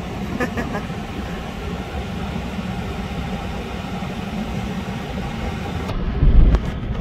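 Car's engine and road rumble heard from inside the cabin while driving in city traffic, steady and low. About six seconds in comes a loud low thud-like surge, the loudest moment.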